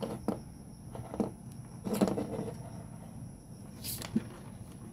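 Small clicks, taps and rustles of hands handling a battery's red and black wires and a Bluetooth speaker's circuit board, as the battery leads are brought to the board; a handful of separate clicks about a second apart.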